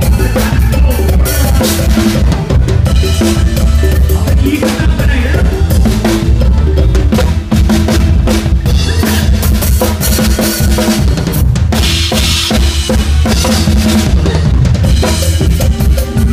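Drum kit played hard and fast up close, with kick drum, snare and cymbal hits over the bass and the rest of a live mor lam sing band.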